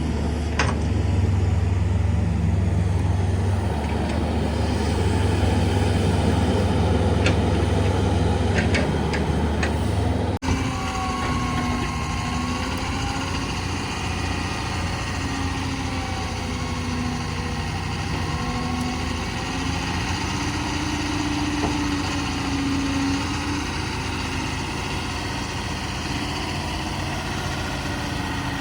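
Heavy diesel engine of an earthmoving machine running steadily, with a few faint clinks in the first half. About ten seconds in the sound changes abruptly, and after that the engine note wavers up and down.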